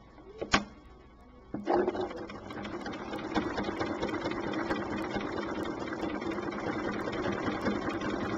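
Domestic sewing machine starting up about a second and a half in, then stitching steadily at speed during free-motion quilting. A single sharp click comes just before it starts.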